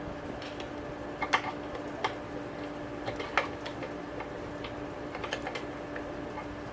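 Scattered light clicks and taps of a pry tool working at a stuck aftermarket stator cover on a dirt bike engine, the sharpest about a second in and again past three seconds, over a steady hum.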